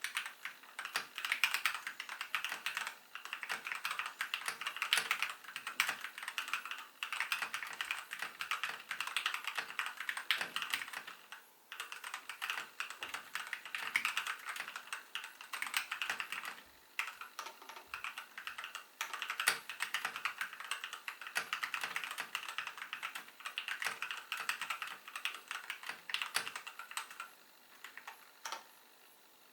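Typing on a Kono 84 mechanical keyboard with pre-lubed Gateron Milky Yellow linear switches, a foam-filled bottom case and lubed plate-mounted stabilizers: a fast, steady stream of keystrokes with a few brief pauses, stopping near the end.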